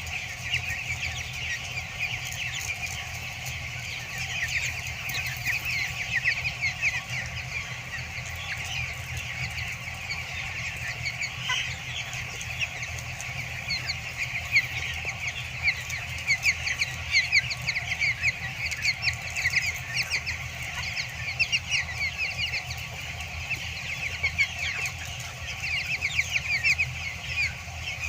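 A large flock of two-week-old broiler chicks peeping continuously, many short high chirps overlapping, over a steady low hum.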